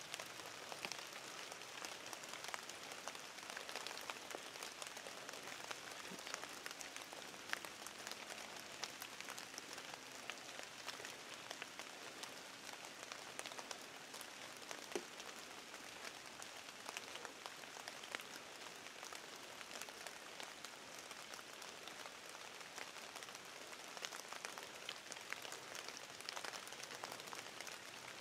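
Faint, steady patter of light rain: a soft hiss dotted with many small ticks, one tick a little stronger about halfway through.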